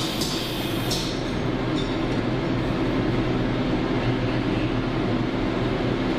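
Steady mechanical hum of a CNC machining centre standing with its spindle stopped, its pumps and fans running. A few light metallic clicks in the first second as a screwdriver works on the boring head.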